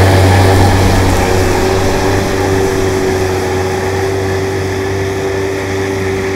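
Tractor's diesel engine running steadily while it cuts grass with a 9-metre mower, growing slowly fainter.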